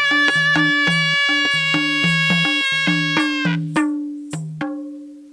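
Nepali sanai, a double-reed shawm, holding a long note over a steady beat of madal hand-drum strokes. A little past three seconds in the sanai stops and the madal plays a few last strokes, its final note ringing and fading away: the end of the tune.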